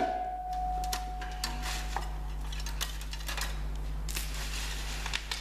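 Cable ties being snipped off with side cutters: a series of sharp, irregular snips and clicks, the first followed by a metallic ring that lasts about two seconds.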